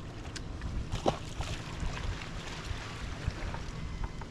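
Wind rumbling on the microphone over water lapping around a small fishing boat, with a few light clicks and knocks.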